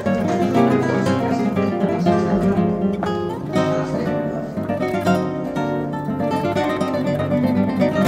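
Background flamenco guitar music, plucked and strummed acoustic guitar playing a busy run of notes.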